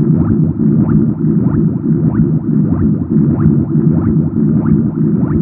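A looped bubbling-liquid sound effect: a dense low bubbling bed with a regular rising blip about every 0.6 seconds.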